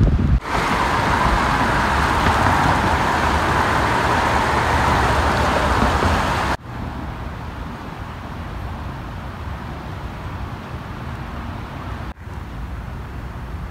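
Steady rushing hiss of a swollen, fast-flowing river pouring past concrete bridge piers. It cuts off suddenly partway through to a quieter steady outdoor hush over still floodwater. A brief wind buffet on the microphone comes at the very start.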